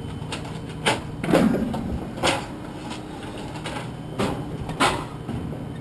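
Scrap metal being unloaded by hand: a series of about six separate clanks and bangs as pieces are thrown and dropped.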